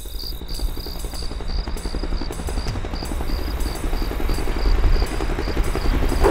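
Insect-like chirping, a high pulse about three times a second over a steady high tone, layered over a low fluttering rumble that slowly grows louder.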